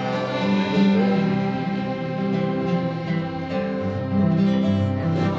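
Acoustic guitar and a held, steady tone playing out the last bars of a song, with long sustained notes and no words.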